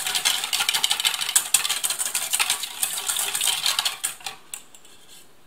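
Wire balloon whisk rattling and scraping fast against a stainless steel bowl while whisking a thick mustard and honey vinaigrette. The whisking stops about four seconds in, followed by a couple of single taps.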